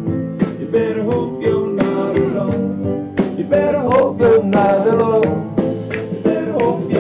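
A song with singing, guitar and a steady beat playing from a JBL Horizon Bluetooth speaker, streamed from a paired phone.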